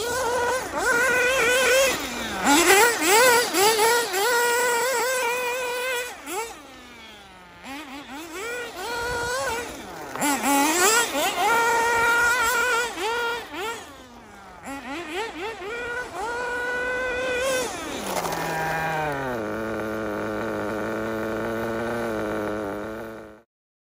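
Kyosho MP9 TKI4 nitro buggy engine revving hard in repeated full-throttle runs, its pitch climbing and dropping as the buggy accelerates and brakes. About 19 seconds in it settles to a steady idle, then stops suddenly. The engine is new and still running a bit rich.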